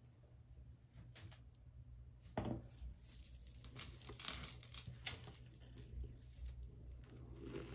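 Long fingernails raking and pinching through a heap of dry Comet powder cleanser, giving faint, irregular scratching, crunching strokes, a few louder ones in the middle.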